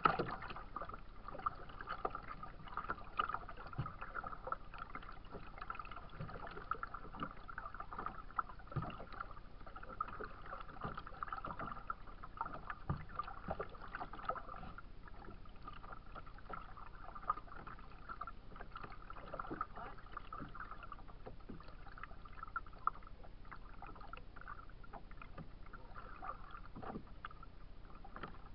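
Small waves lapping and slapping against a plastic kayak hull, a string of irregular small splashes and knocks, over a faint steady whine.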